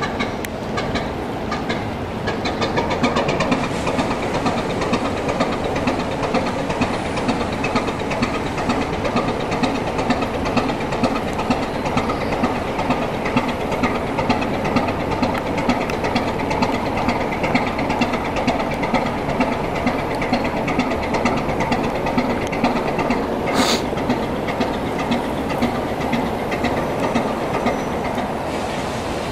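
Atlas-Imperial four-cylinder slow-speed diesel of a steam-era tug running at a steady, even rhythmic beat as the boat moves slowly under way. A brief high-pitched noise cuts in about three-quarters of the way through.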